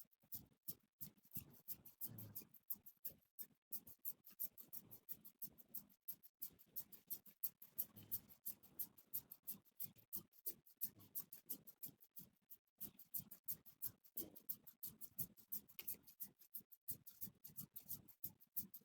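Fingers rubbing and scratching through hair on the scalp during a head massage, close to the microphone: a fast, uneven run of short scratches.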